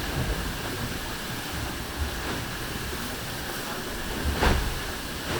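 Onboard a racing sailboat under way: a steady rush of water and wind noise with a low rumble, and one loud thump about four and a half seconds in.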